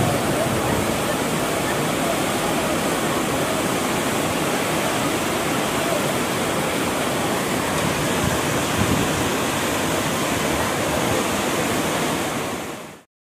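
River water rushing steadily over the stepped stone weir of the Khaju Bridge on the Zayanderud, a continuous white-water rush. It fades out quickly near the end.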